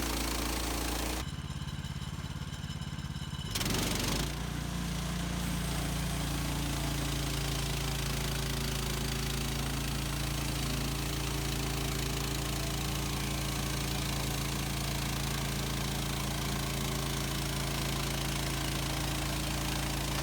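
Gasoline engine of a Woodland Mills HM130 Max portable bandsaw sawmill running steadily. About a second in the sound changes for roughly two seconds to a low, pulsing thudding, followed by a short louder burst, and then the steady engine running goes on.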